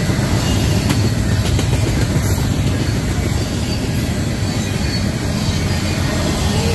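Norfolk Southern freight train rolling past: a steady rumble of wheels on the rails, with a few faint clicks.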